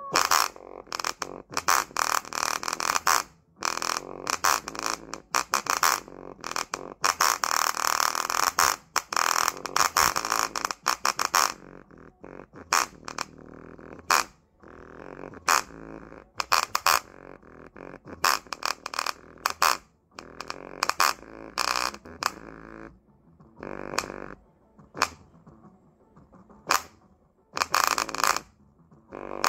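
Small bare full-range speaker driver from an Omaker M4 playing music far past its limits. Its cone bottoms out on the bass, giving a distorted, farting rattle with sharp slaps. The sound is dense for the first ten seconds or so, then breaks into separate bursts.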